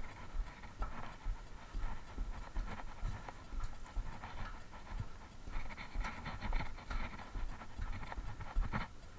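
Footsteps on a tunnel floor, a dull thump every half second or so, with a person's heavy breathing swelling and fading close to the microphone.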